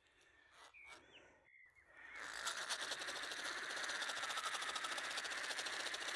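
Fixed-spool fishing reel being cranked steadily, its gears and rotor whirring with fast fine clicking as line is wound back onto the spool. It starts about two seconds in.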